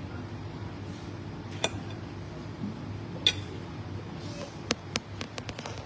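Metal spoon and fork clinking against a ceramic plate while eating: a few separate sharp clinks, then a quick run of lighter taps near the end, over a steady low background hum.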